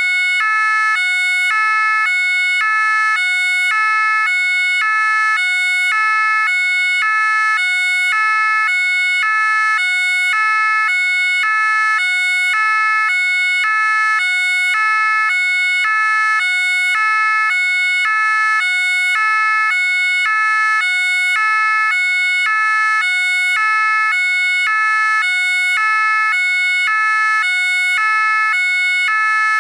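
French Gendarmerie two-tone siren, alternating steadily and evenly between a high note and a low note.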